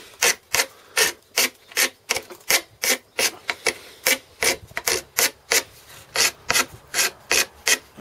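Hand rasp filing the edge of a pole end in quick, even back-and-forth strokes, about three a second, to take the edge off and key the surface for glue.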